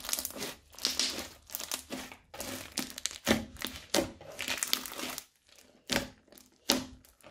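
Crunchy slime full of small beads being squeezed and kneaded by hand: irregular bursts of crackling and crunching squishes. Near the end it turns into a few sharper, separate clicks.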